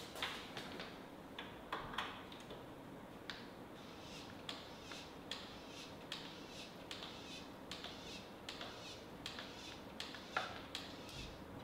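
Faint, irregular clicks and clacks, one or two a second, from a hand-pumped grease gun being worked on the front A-arm grease fittings, with a sharper clack near the end.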